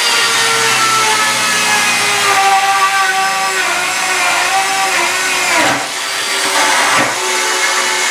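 Bosch EasyCut 12 cordless 12-volt NanoBlade saw running as its blade plunge-cuts straight down into a wooden board. The motor's pitch dips twice in the last few seconds, then recovers.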